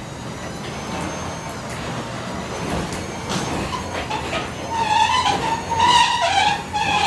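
Belt-drive garage door opener running on its new drive belt, its motor humming steadily as the door travels along its track. A wavering high squeal joins in during the last couple of seconds.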